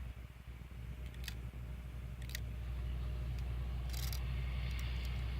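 Handling clicks from a BB rifle being loaded with steel BBs: a few separate sharp clicks, then a light, grainy rattle from about four seconds in, all over a steady low rumble.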